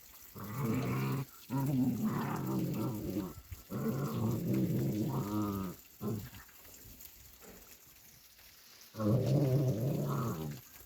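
Puppies growling at each other as they play-fight, in long growls of a second or two each, with a pause of about three seconds before a last growl near the end.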